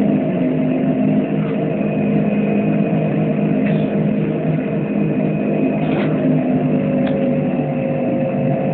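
Inside a moving trolleybus: a steady hum of the running bus with a thin, high, constant whine, and a few short rattles in the second half.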